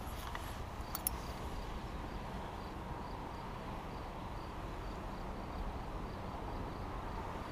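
Faint insect chirping, evenly repeated about twice a second, over a low steady rumble, with a light click about a second in.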